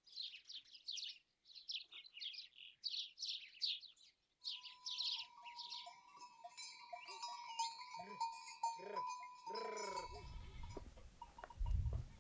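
Quick repeated bird chirps. Then, after an abrupt change, a herd of goats with clanking neck bells and several bleats. A low rumbling noise comes in near the end.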